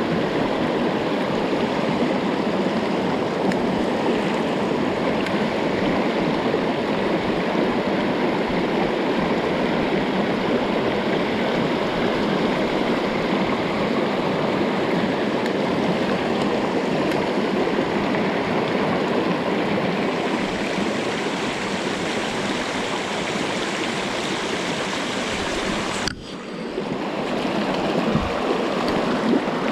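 Mountain stream water rushing steadily over rocks. About 26 seconds in the sound briefly drops away, then returns.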